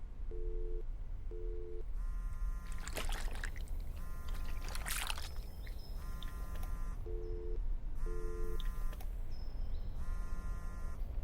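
A phone call ringing. Pairs of short low beeps come first, then a repeating electronic ringtone that sounds for about a second and pauses for about a second, over and over. Two brief hissing swishes come about three and five seconds in.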